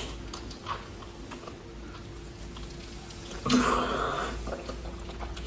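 A person eating with mouth noises close to the microphone: faint chewing and small wet clicks, with a louder noisy burst about three and a half seconds in.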